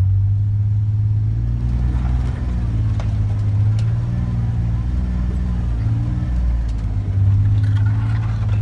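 Kawasaki Mule Pro FXT side-by-side's 812 cc three-cylinder engine running at a low, steady speed under load, its pitch rising and falling slightly, with a few faint knocks and rattles from the rough trail.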